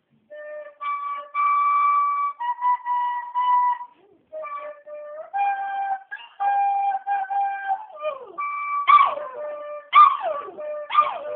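A recorder playing a slow tune of steady held notes. From about nine seconds in, a Lhasa Apso howls along in repeated falling yowls over the notes.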